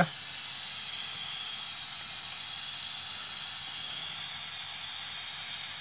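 Steady hiss of simulated escaping steam from the sound decoder's small speaker in a Dapol OO gauge Gresley A4 model steam locomotive.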